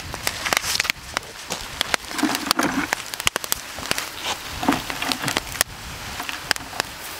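Wet seaweed being heaped onto a hot cooking pit, crackling and sizzling with many sharp pops over a steady hiss, along with the rustle of the strands as handfuls go on.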